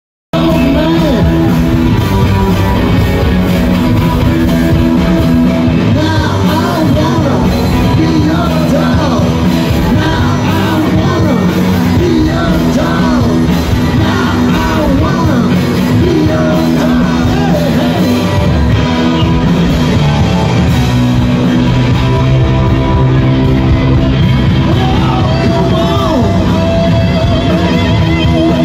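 A live rock band playing loud through the stage speakers: electric guitars, bass and drums, with a singer over the top.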